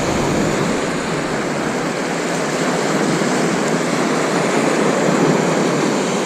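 Lake waves washing onto the shore: a steady, even rushing noise.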